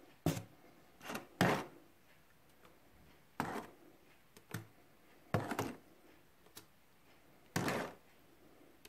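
Gypsum and PVA putty being spread onto a polystyrene panel: about six short scraping, smearing strokes with quiet pauses between them.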